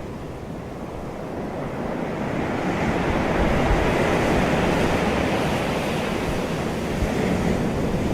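Ocean surf washing in a steady rush that swells over the first three or four seconds, then eases slightly.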